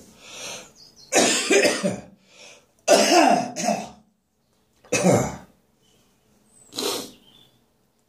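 A person coughing in a run of about five bouts, half coughing and half choking on saliva that went down the wrong way; the loudest bout comes about three seconds in, and the later ones are shorter and fainter.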